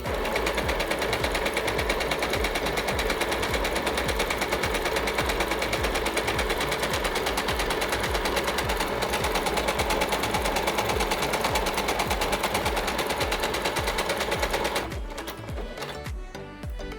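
Yamata digital sewing machine stitching a selected pattern at speed with a rapid, even rattle, stopping abruptly about fifteen seconds in. It runs with some mechanical noise.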